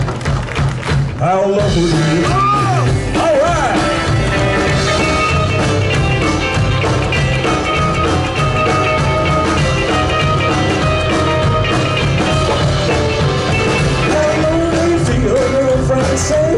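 A live band playing rock-and-roll music, with singing.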